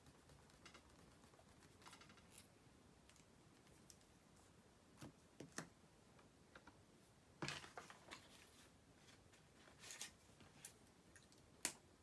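Quiet desk sounds: light scratching of a pen writing on paper in the first few seconds, then scattered light clicks and knocks as a pen and a sticky note pad are handled and set down on the desk, the sharpest click near the end.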